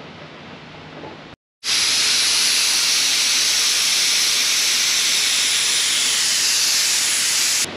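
Compressed air hissing steadily from an air gun. It starts about a second and a half in, after a brief cut, and stops just before the end.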